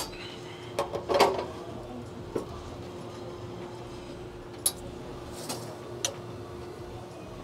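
Small glasses and metal parts clinking and knocking on the stainless drip tray grate of an espresso machine: a cluster of sharp clicks about a second in, then single clicks every second or two, over a steady low hum.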